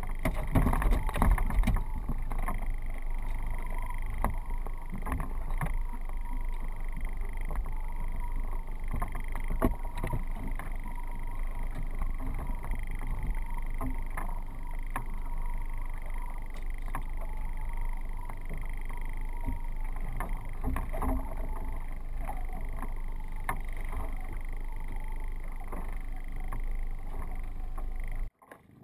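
Small fishing boat afloat: a steady wind-and-water noise with a steady high hum, and scattered knocks and clunks as gear is handled in the cockpit, busiest in the first couple of seconds. The sound cuts off abruptly near the end.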